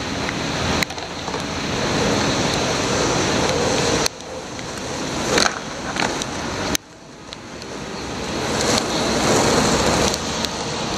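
Wheels rolling over rain-soaked asphalt, a steady wet hiss. It builds up and then cuts off abruptly about a second in, about four seconds in and again near seven seconds.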